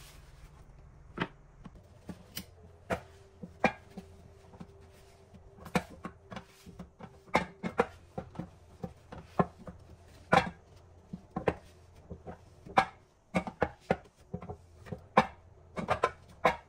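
Knife chopping food on a cutting board, in irregularly spaced knocks and clicks.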